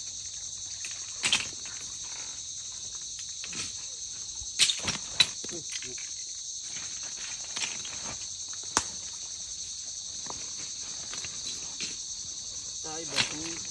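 Steady high-pitched drone of insects in a mangrove forest. Scattered sharp clicks and knocks, the loudest a few seconds in, as shellfish are picked from the mud by hand and put into a sack.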